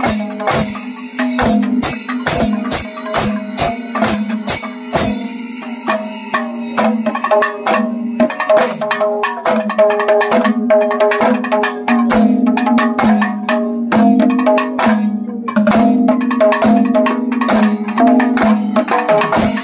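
Several maddalam drums of a Kerala panchavadyam ensemble struck with the hands, ringing with a deep tuned tone. The strokes are spaced at first, then grow denser and louder from about eight seconds in.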